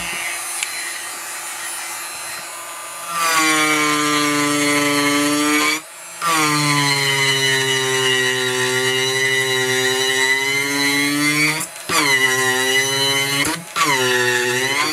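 Handheld rotary tool with a carving burr grinding down a wooden block. A softer grinding hiss comes first. About three seconds in, the motor's high whine sets in. It breaks off briefly three times, and its pitch sags and recovers as the bit bites into the wood.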